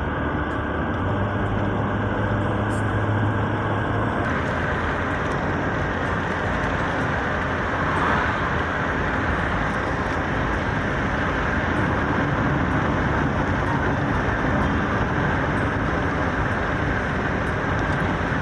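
Steady in-cabin road and engine noise of a moving charter bus on the highway, with a low engine drone for the first few seconds.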